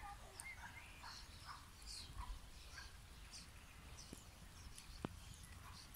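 Faint outdoor quiet: scattered bird chirps and the soft crunch of a horse's hooves stepping on gravel, with a couple of sharper clicks near the end over a low rumble.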